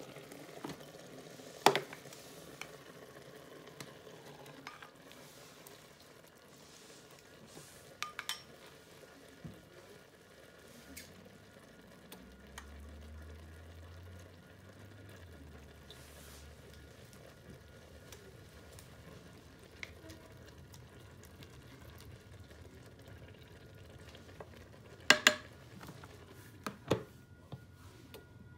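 Rice cooker with its lid open on part-cooked rice: a faint steady sizzle from the hot inner pot, broken by a few sharp clicks and knocks of the pot and lid, the loudest a pair near the end.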